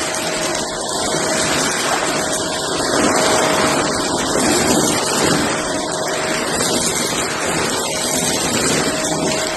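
Shark vacuum cleaner running steadily, its motor giving a steady whine over the rush of suction, as it vacuums up cardboard debris.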